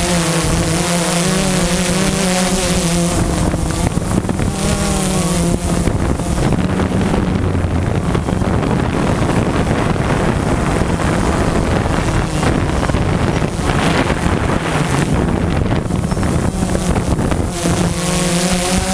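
A drone's electric motors and propellers running, heard through the onboard camera as a steady buzz with a wavering whine over it. Wind rushes over the microphone, heaviest through the middle stretch, where it partly drowns the whine.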